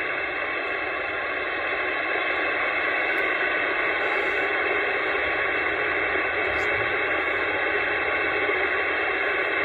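Static from an AnyTone AT-666 CB radio's speaker on an open channel: a steady, even hiss of band noise with no voice coming through.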